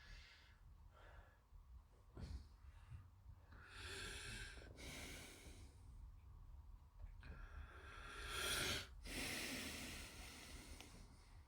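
Faint breathing close to the microphone: a few long, hissy breaths.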